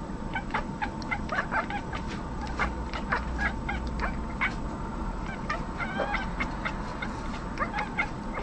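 Cats chattering: a rapid, irregular string of short chirps and clicks, the excited call a cat makes when fixed on prey it can't reach.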